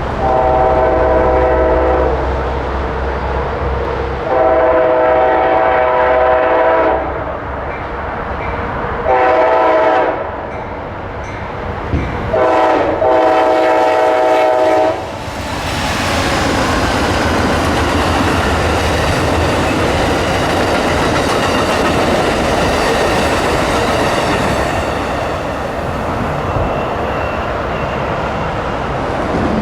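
Train horn sounding the long, long, short, long grade-crossing signal, then the train passing close by with a steady clatter of wheels on the rails.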